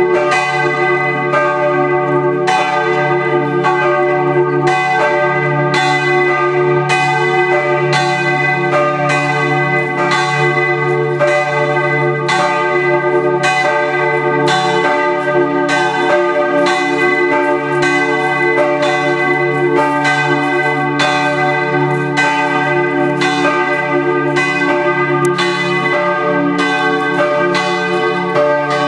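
Church tower bells ringing together in full peal (plenum), the Sunday call to service. Strikes from the different bells come roughly twice a second and overlap into one continuous, loud ringing with many hum tones sounding at once.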